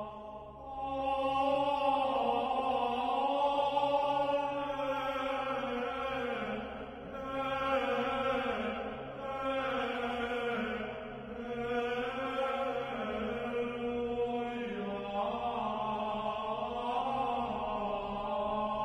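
Slow, chant-like vocal music: long held sung notes in phrases of a few seconds each, over a steady low drone.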